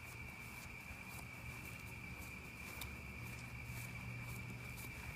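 Faint, irregular rustling footsteps of a person walking at night, over a steady high-pitched whine.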